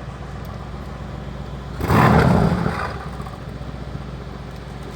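Mercedes-AMG C63's 4.0-litre twin-turbo V8 idling, then blipped once about two seconds in: a sharp, loud rev through the exhaust that falls straight back to idle.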